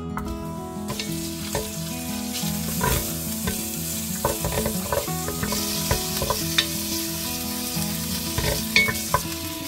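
Beef sizzling as it stir-fries in perilla oil in a stainless-steel pot, with a wooden spoon scraping and clicking against the pot's bottom many times.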